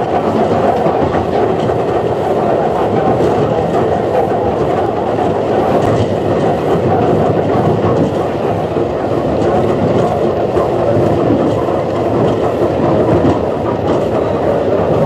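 Sydney wooden-bodied Bradfield electric train running at speed: a steady, loud rumble with the wheels clicking over the rail joints.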